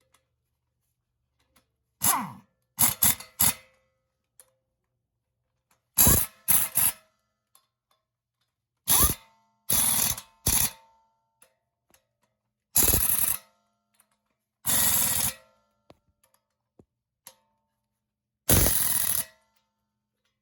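Impact wrench set to about 130 ft-lb, snugging down the wheel hub assembly's mounting bolts into the steering knuckle. It runs in short rattling bursts, six groups in all. The later bursts run longer as each bolt is driven down.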